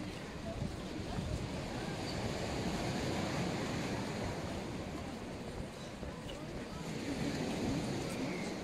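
Black Sea surf washing against the shore, a steady rushing noise, with wind buffeting the microphone.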